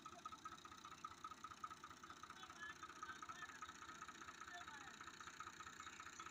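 Near silence: faint outdoor background noise with a steady fast pulsing and a few faint, short high chirps scattered through.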